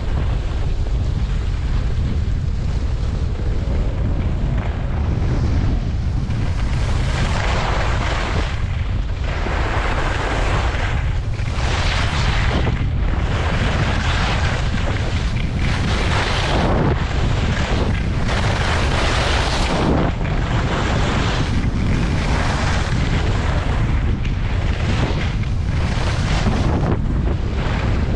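Wind buffeting the microphone in a steady low rumble during a fast downhill slide, under a hissing scrape of edges on groomed snow that swells and fades with each turn, every second or two.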